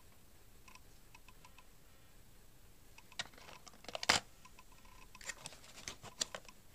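A plastic 3.5-inch floppy disk set down in a cardboard box insert with a sharp tap, among light clicks, then a coiled cable with a serial plug lifted out, giving several more small clicks and rustles.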